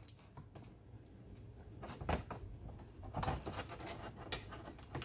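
Scattered light clicks and taps of a locking C-clamp being worked into place on an aluminium chainsaw side cover: small metal handling sounds, a few about two seconds in and more over the last two seconds.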